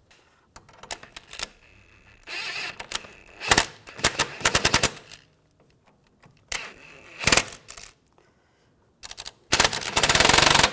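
Cordless impact wrench hammering a nut down onto a suspension bolt, in several short bursts of rapid rattling with brief pauses between them.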